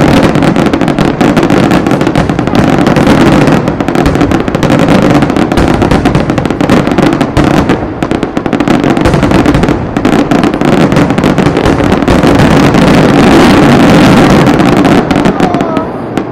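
Aerial fireworks display: a loud, dense barrage of shells bursting, countless bangs and crackles running together, easing off near the end.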